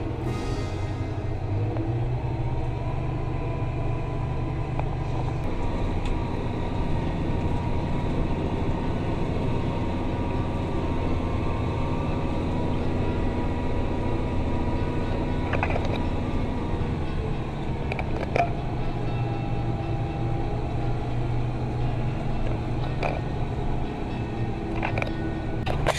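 Farm tractor engine running steadily with a low drone, with a few light clicks or rattles here and there.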